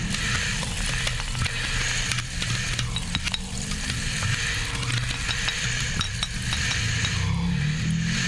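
Improvised music of pre-Hispanic percussion looped and processed by granular sampling: a dense crackling texture of many small clicks over a low steady hum.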